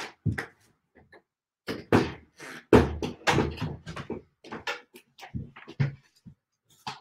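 Irregular knocks, bumps and handling noise close to the microphone, the loudest about two to three seconds in.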